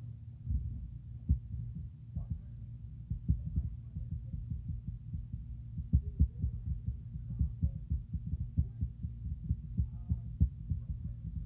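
Low, steady rumble with irregular dull thumps, several a second, like a muffled heartbeat.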